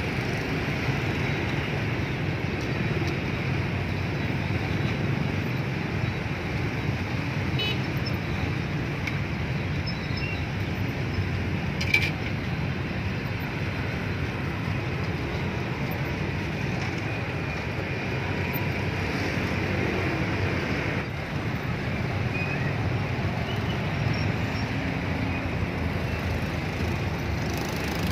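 Steady background traffic noise of a street, with one sharp click about twelve seconds in.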